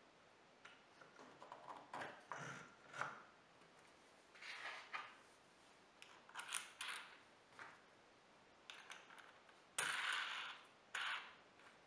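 Light handling sounds of a plywood stop block being fitted to a sled's T-track fence: wood knocking and sliding on wood, with small metallic clicks from the bolt and washer as they are pushed through and fastened. Two louder, longer rubbing sounds come near the end.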